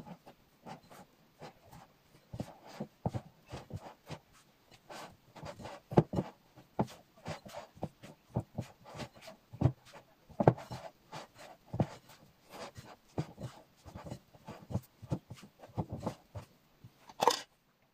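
Hands kneading and squishing pizza dough in a glass mixing bowl: irregular soft slaps and squelches several times a second, with a sharper knock just before the sound cuts off.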